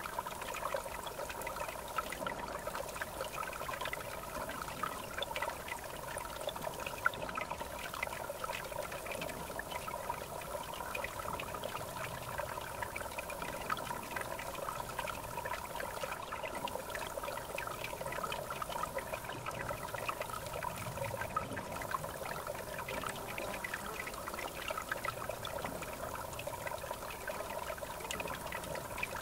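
River water running with a steady trickling, babbling sound.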